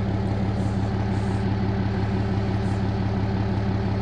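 Pickup truck engine idling steadily, a low even hum.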